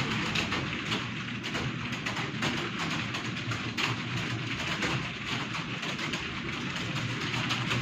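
Many people typing at once on keyboards during a timed typing test: a dense, continuous clatter of overlapping keystrokes.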